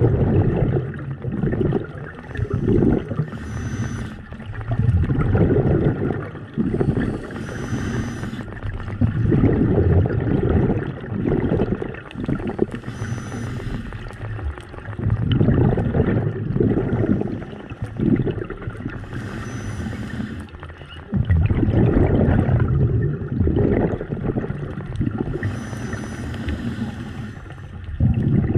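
Scuba diver breathing through a regulator underwater: about five breaths, each a short hiss on the inhale followed by a longer low rush of exhaled bubbles.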